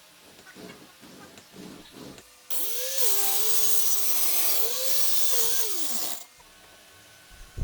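Angle grinder run against wood. It starts abruptly a couple of seconds in, with a harsh grinding hiss over the motor's whine. The pitch dips and climbs back, then winds down before cutting off about a second before the end. A few faint knocks come before it.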